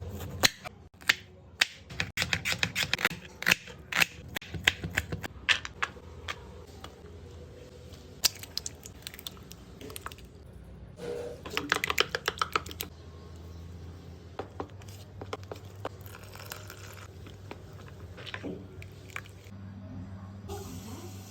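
Kitchen utensil clicking and tapping against a bowl while batter is mixed, with fast runs of clicks about 8 and 11 seconds in, over a steady low hum.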